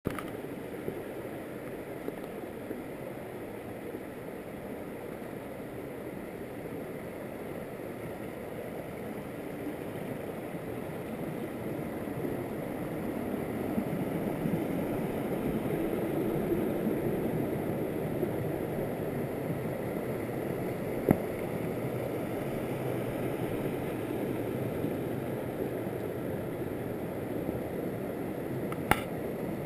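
Stream water running over rock ledges and small cascades, a steady rush that swells louder midway and then eases a little. Two sharp clicks in the second half.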